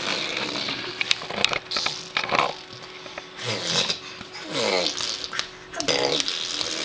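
A small child fake-coughing: a string of short, rough coughs, some with voice in them that falls in pitch.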